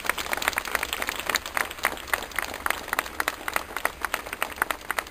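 Crowd applauding: many hands clapping in dense, irregular, steady applause.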